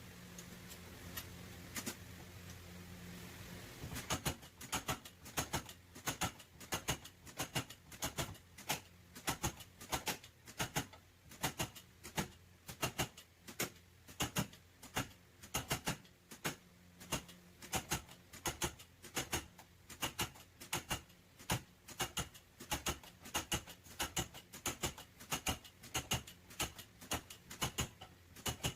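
Repeated light hammer taps on car body sheet metal, about two a second and often in quick pairs, starting about four seconds in after a steady low hum: panel beating on the damaged back panel.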